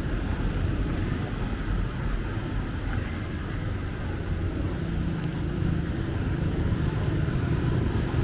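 Street traffic noise: a steady low rumble of passing vehicles, with no single event standing out.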